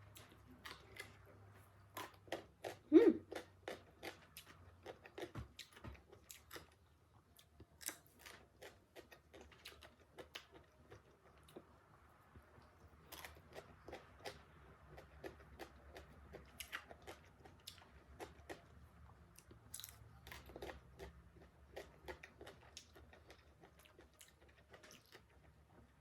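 Close-up crunching and chewing of unripe green mango, a long string of crisp crunches, with one louder bite about three seconds in.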